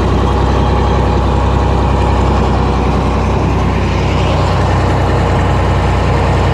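Heavy farm machine's engine running steadily at a constant speed, loud and close.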